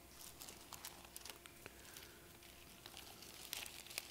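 Faint rustle and soft clicks of thin Bible pages being turned by hand while looking for a passage, over a faint steady hum.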